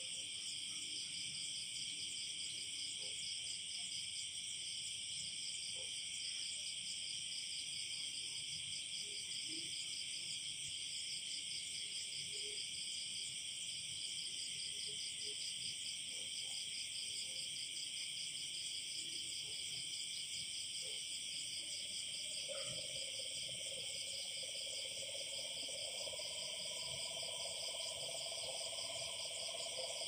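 Night chorus of crickets, a steady high-pitched trilling with a fast pulse. About two-thirds of the way through, a lower, steady call joins it.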